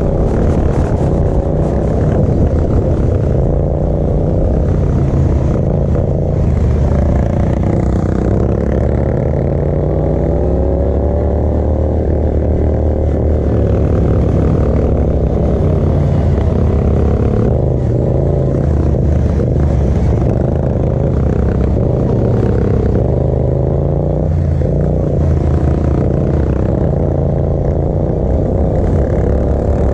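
Racing ride-on lawn mower's engine running hard, heard from the driver's seat, its pitch rising and falling repeatedly as the throttle opens and eases.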